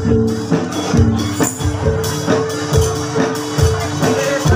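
Javanese gamelan music of the kind that accompanies jathilan: held metallophone notes ringing over a steady beat of low drum strokes, about two a second.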